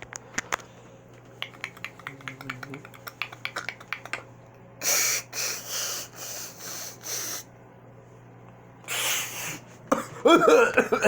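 A person making sound effects with the mouth: a quick run of clicks, then several breathy hissing blasts, another hiss, and a short voiced, warbling noise near the end.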